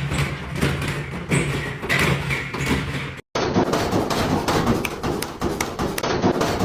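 Malfunctioning washing machine knocking and banging in a rapid, irregular clatter over a low hum. The sound drops out for an instant about halfway through.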